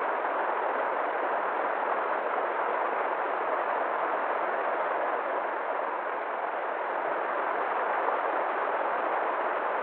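River water flowing: a steady, even rushing that never lets up.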